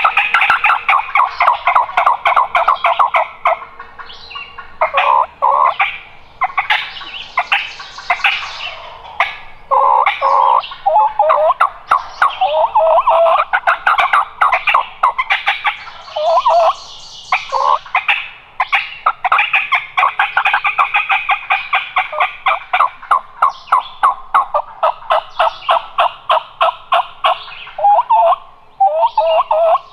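Turkey calling: loud, near-continuous runs of rapid, evenly spaced notes, broken by a few short pauses.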